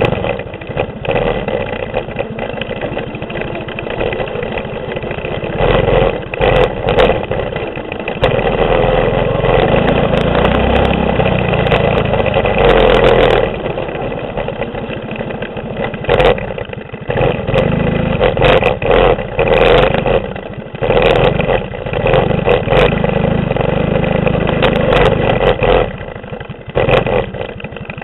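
Mini bike's 6.5 hp clone single-cylinder four-stroke engine under throttle on a dirt trail, revving up and easing off several times as the rider works the throttle, with scattered knocks from the bike hitting bumps.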